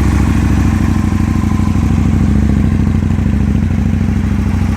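Aprilia Tuono 1000 R's V-twin engine idling steadily through aftermarket Leo Vince exhausts, still warming up after a cold start.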